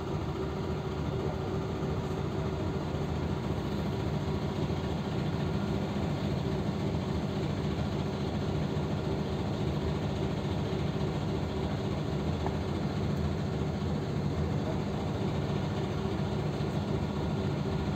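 PAZ 320405-04 bus engine idling steadily, heard from inside the passenger cabin while the bus stands almost still.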